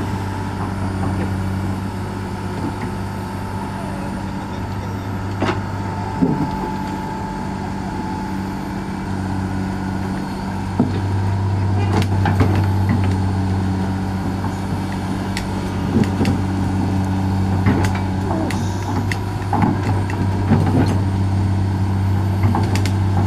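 A heavy diesel engine running steadily, with a few sharp clicks and knocks over it.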